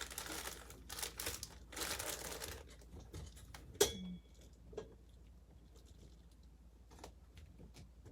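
Packaging crinkling and tearing as small CPU-cooler mounting parts are unwrapped and handled. One sharp click comes just under four seconds in, followed by a few faint taps.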